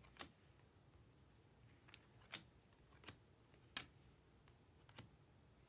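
Faint, short snaps of trading cards being flipped through one at a time, about six clicks spread over a few seconds.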